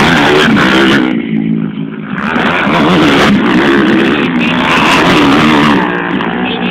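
Motocross dirt bike engines revving hard as bikes ride past, the pitch rising and falling with the throttle, louder again from about two seconds in.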